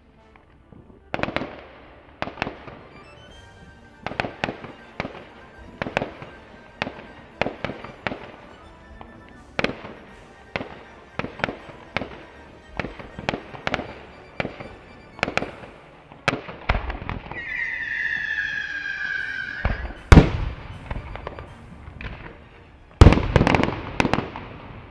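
Fireworks display: a string of sharp bangs from bursting aerial shells, about one or two a second. Past the middle comes a falling whistle lasting a few seconds, and near the end come the two loudest bangs.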